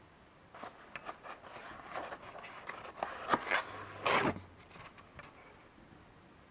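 Paper and cardboard packaging being handled: an instruction sheet rustling and scraping as it is lifted out of a box, with light taps and clicks and one louder swish about four seconds in.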